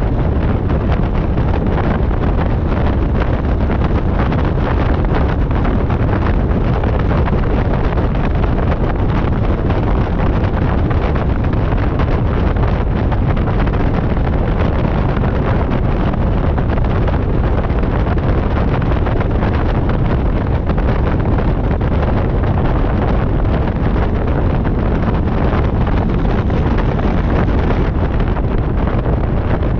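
A steady, loud rush of propeller wash and wind buffeting a microphone mounted outside under a light high-wing aircraft, with the engine running at taxi power.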